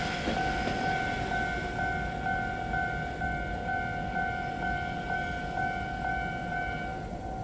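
Level-crossing warning bell ringing in a steady, even repeat and cutting off near the end, over the fading rumble of a Kotoden 1100-series electric train pulling away.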